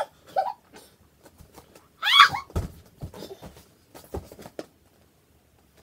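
A girl's short high-pitched cry about two seconds in, with scattered light knocks and rustles from movement on the floor around it.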